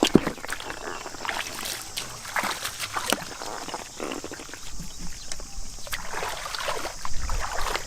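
Shallow floodwater being splashed and sloshed by a person working in it, in irregular short splashes with no steady rhythm.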